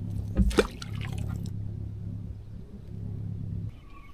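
Steady low hum of a small motor, with a couple of knocks about half a second in, cutting off suddenly about three and a half seconds in.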